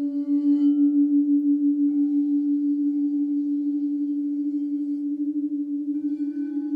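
Frosted quartz crystal singing bowls ringing: one low sustained tone with a steady wavering pulse. A softer, higher bowl tone joins about two seconds in, and another near the end.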